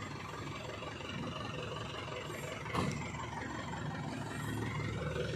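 Isuzu Elf NKR55 minibus's diesel engine idling steadily, with a single knock about halfway through.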